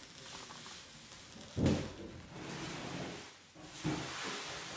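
Plastic protective film being peeled off a mirror's glass: a rustling, crackling hiss, with one louder bump about a second and a half in.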